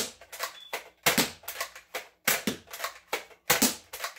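Nerf Elite dart blaster being primed and fired over and over. Sharp plastic clacks and pops come in groups of a few, one group about every second.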